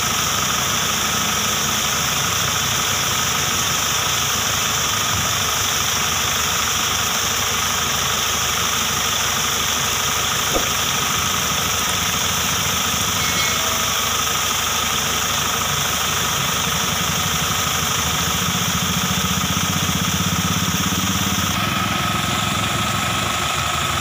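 An engine running steadily with an even low chug, under the continuous hiss and splash of a heavy jet of pumped water from a large hose pipe striking a tractor's tyre.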